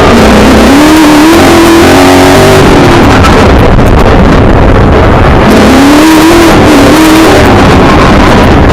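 Milner R5's 5-litre V8 heard from inside the car, revving up and easing off twice over heavy road and wind noise. The sound is very loud and the recording is overloaded.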